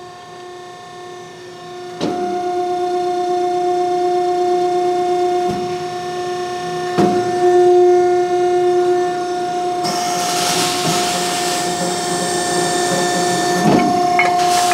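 CNC press brake running through a bend: a steady machine hum that gets louder about two seconds in as the ram works, with a couple of short knocks, and a hissing rush joining in over the last few seconds.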